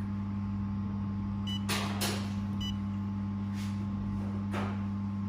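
Steady low electrical hum from the running fiber laser welding machine, with two short high beeps about a second apart from its touchscreen control panel as settings are pressed. A few brief soft swishes come in between.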